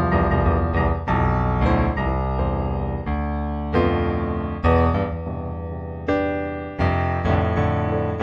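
Solo piano music: chords and notes struck and left to ring and fade, a new chord about every second.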